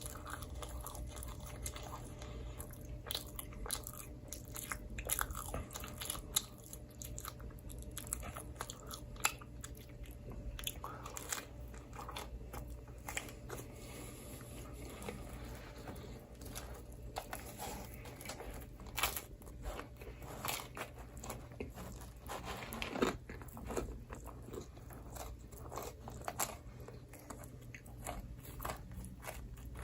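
Close-miked chewing and biting of microwave pizza: many small, irregular crunches and clicks over a steady low hum.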